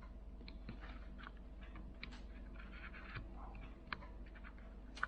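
Faint, scattered small clicks and scratches of tiny screws, brackets and tools being handled against a smartphone's open chassis during reassembly.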